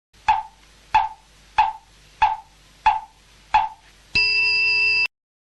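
Mokugyo (wooden fish) struck six times at an even pace, then a single ring of a Buddhist rin bell that cuts off abruptly after about a second: the classic cue for pondering, then hitting on an idea.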